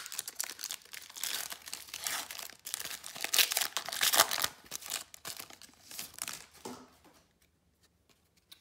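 Foil wrapper of a Prizm basketball trading card pack crinkling and tearing as it is peeled open by hand; the crinkling stops about seven seconds in.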